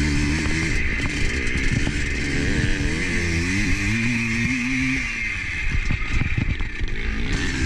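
Motorcycle engine running under way, its pitch rising and falling with the throttle over a steady hiss, with a patch of rough clattering a little before the end.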